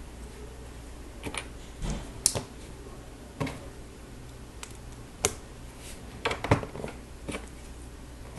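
Plastic Lego pieces being handled and snapped together: irregular sharp clicks and small taps, about a dozen spread unevenly, the loudest a little over two seconds in and a cluster near the six-and-a-half-second mark.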